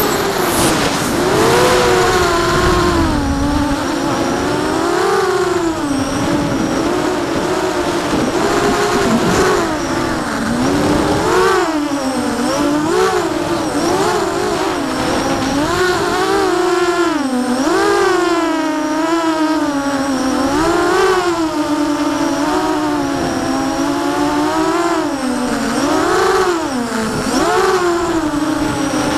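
The brushless motors and propellers of a 6-inch 4S FPV quadcopter whine loudly, heard from the camera on board. The pitch rises and falls constantly with the throttle.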